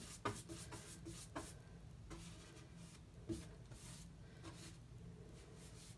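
Faint scratchy strokes of a paintbrush dragged across canvas, with a few soft ticks and taps scattered through.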